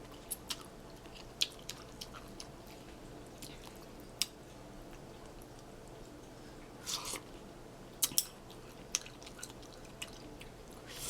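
Quiet eating sounds from a person eating a bowl of noodle soup: chewing with scattered small clicks, and a short louder noise about seven seconds in.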